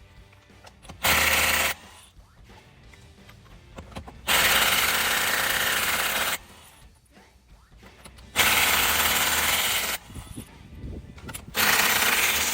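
A power tool run in four separate bursts of about one to two seconds each, each a steady, even whirring hiss that starts and stops abruptly.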